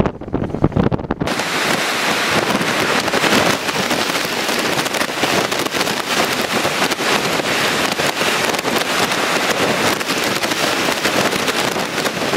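Hurricane-force wind buffeting the microphone in gusts. About a second in, it gives way abruptly to a steady, dense hiss of storm wind and driving rain.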